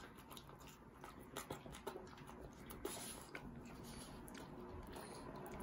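Boston terrier eating cheese from a hand: faint, irregular wet smacks and clicks of its tongue and mouth as it licks and chews.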